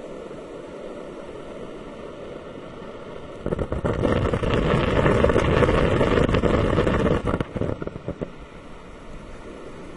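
Humidifier bubbling, a steady watery hiss. About three and a half seconds in it swells into a loud rush of bubbling for about four seconds, then sputters a few times and falls back to the hiss.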